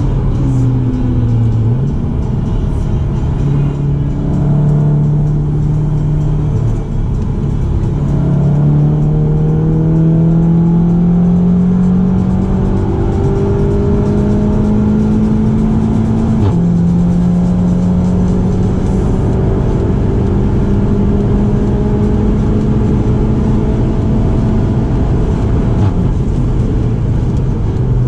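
Seat Leon Cupra 290's turbocharged 2.0-litre four-cylinder engine pulling hard, heard inside the cabin over steady road and wind noise. The engine note climbs slowly through a gear and drops sharply at a DSG upshift about halfway through, then holds fairly steady.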